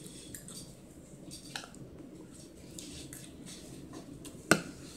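Faint rustling and small clicks of a child shifting her feet on the bedding of a soft bed, with one sharp knock near the end.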